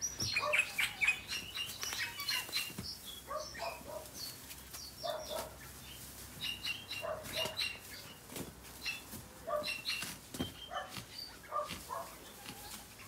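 Digging at the roots of a bamboo clump with a long-handled tool: scattered knocks, scrapes and rustles, with short high chirps in between.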